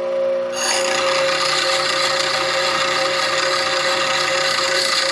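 A steel bowl gouge is pressed against the wheel of a slow-speed (1800 RPM) bench grinder, its side being ground back to shape an Ellsworth fingernail grind. A steady rasping grind starts about half a second in, over the steady hum of the grinder's motor.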